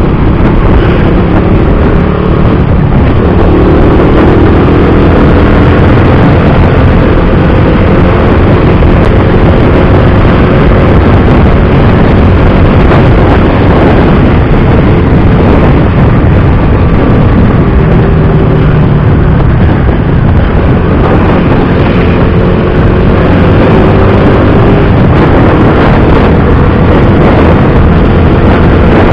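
Rusi Bantul motorcycle riding along at road speed, its engine running with a slowly rising and falling pitch under heavy wind noise on an action camera's built-in microphone.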